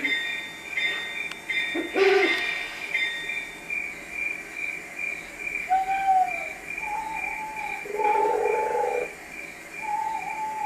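Crickets chirping in an even, steady pulse, about two to three chirps a second. A short pitched blast sounds about two seconds in, and short lower wavering calls join from about the middle on.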